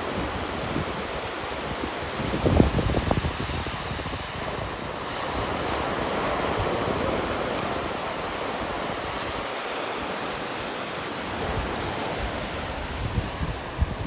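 Ocean surf breaking and washing up a sandy beach in a steady rush. Wind buffets the microphone in low gusts, the strongest about two and a half seconds in.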